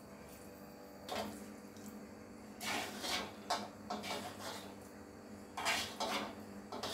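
Spatula scraping and knocking inside a hammered metal kadai and against a plate as the cooked cauliflower-potato curry is served out. The scrapes come in several separate, irregular bursts.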